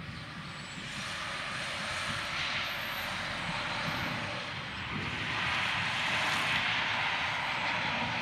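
Thunder rolling, building about a second in, strongest in the second half, and falling away at the very end.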